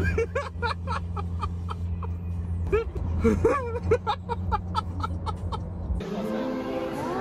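Steady low road and engine noise inside a moving car's cabin, with short bursts of laughter and voices over it. It cuts off about six seconds in, and background music takes over.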